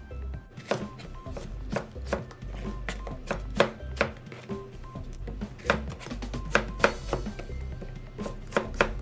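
Cleaver chopping peeled unripe saba banana into strips on a plastic cutting board: sharp, irregular knocks of the blade against the board, about two or three a second.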